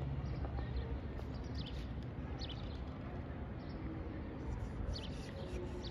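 Outdoor ambience with a low steady background and a few faint, short bird chirps scattered through it.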